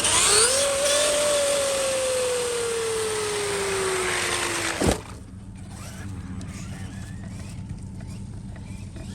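Traxxas Maxx RC truck's electric motor and drivetrain whining at about half throttle while it self-rights. The whine rises briefly, then slowly drops in pitch for about five seconds and ends with a sharp knock.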